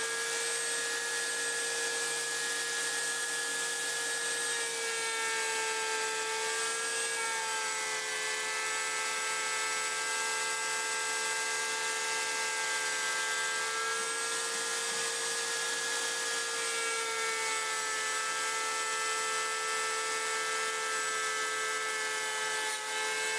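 Table-mounted router running at full speed with a steady high whine, routing a groove along a pine 2x4 fed past the bit, with a hiss of cutting over it. The pitch wavers slightly a few times.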